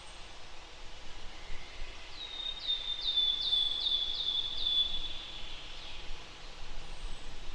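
A songbird singing a quick run of about seven short notes, each dropping in pitch, a couple of seconds in, over a steady outdoor background hiss.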